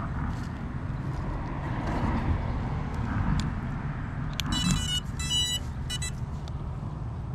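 A steady low rumble, with three short electronic beeps a little over four seconds in, the middle one the longest.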